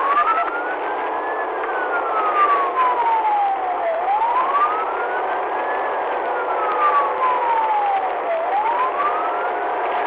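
Police car siren sounding a slow wail, its pitch rising and falling about every four and a half seconds, over steady road noise.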